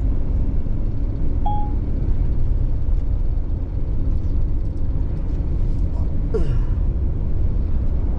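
Camper van driving slowly, its engine and tyre rumble heard from inside the cab, with a short beep about a second and a half in.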